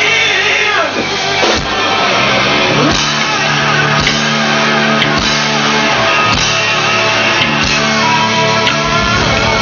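Live rock band playing, with electric guitars over drums; a guitar slides down in pitch about a second in.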